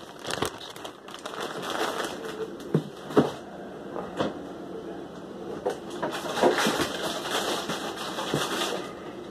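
Handling noise as cilantro leaves are picked and placed on a taco: rustling with a few light taps and knocks, the rustling loudest around two seconds in and again from about six seconds.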